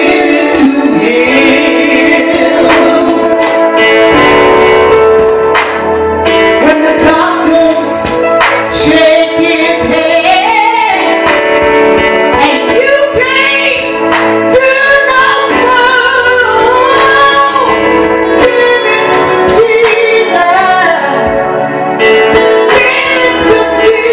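Gospel singing: a lead voice sung into a microphone with sliding, bending runs, over steady instrumental accompaniment.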